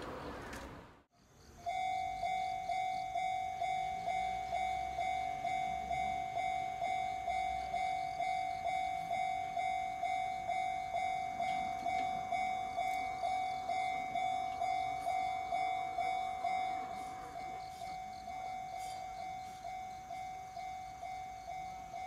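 Japanese railway level-crossing electronic warning bell ringing a steady clang at about two strikes a second, the signal that a train is coming and the crossing barriers are lowering. It starts about two seconds in, after the last of a passing train's noise is cut off, and is a little quieter from about 17 seconds.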